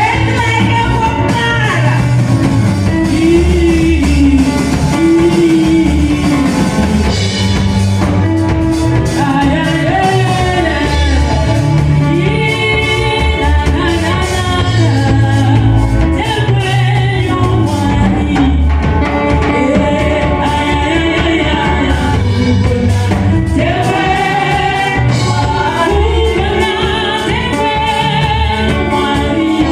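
Live gospel worship song: a group of women singing into microphones, with a drum kit and low instrumental accompaniment playing steadily underneath.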